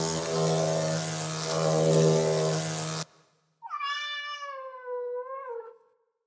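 A wasp's wings buzzing steadily for about three seconds, stopping suddenly. Then a kitten gives one long meow that sinks in pitch.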